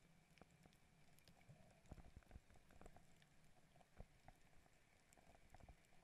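Near silence underwater: faint, scattered clicks and crackles of a coral reef, bunched mostly between two and four seconds in.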